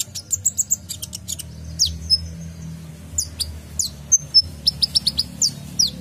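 Male kolibri ninja sunbird singing a rapid, irregular string of sharp, high chirps and short falling notes, the busy 'isian' chatter that keepers play as masteran song.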